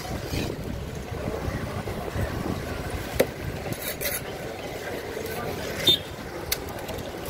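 A large knife slicing and scraping along a whole tuna on a wooden cutting block, with a few short, sharp knocks, over steady street noise and background voices.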